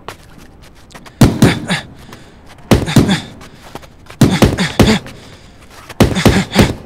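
Boxing gloves striking focus mitts in quick combinations: four bursts of two to four sharp thuds each, spaced about a second and a half apart.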